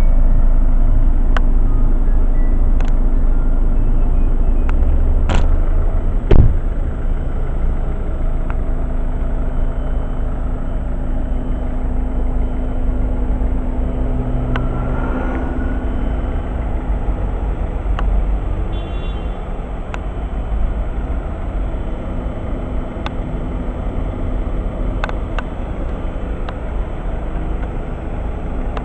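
Volvo V50 1.6D four-cylinder turbodiesel engine idling steadily. A sharp knock about six seconds in, with a few fainter clicks around it.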